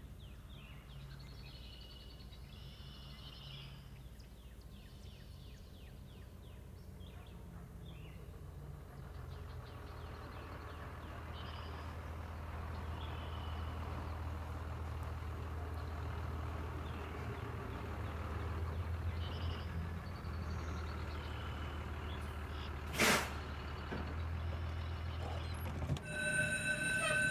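A school bus's engine running, growing louder as the bus draws up and stands, with one short air-brake hiss about two-thirds of the way in. Birds chirp faintly during the first several seconds, and a steady ringing tone starts near the end.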